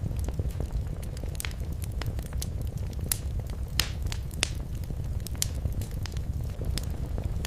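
Wood fire burning in a fireplace: a steady low rumble with irregular sharp crackles and pops throughout, a few louder snaps a little before the middle.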